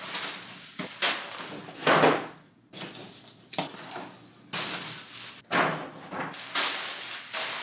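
Paper shopping bags and tissue paper rustling and crinkling as they are unpacked and handled, in several loud bursts.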